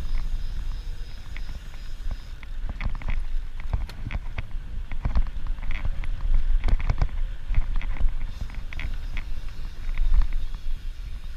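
Bicycle riding over a rough dirt track: a steady low rumble of wind and rolling noise, with many irregular clicks and rattles.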